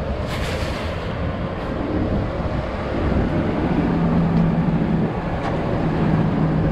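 Vehicle noise: a steady rumble with a low engine hum that comes in about halfway and grows a little louder.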